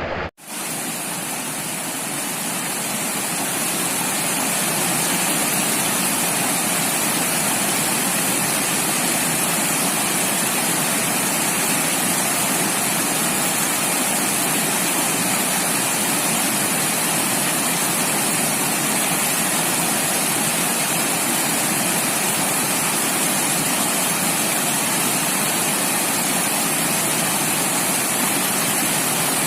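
Steady rush of falling water, like a waterfall or fast stream, even and unbroken; after a brief gap just after the start it fades in over the first few seconds.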